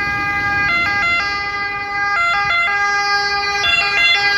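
Ambulance siren sounding its two-tone call, switching back and forth between a high and a low note.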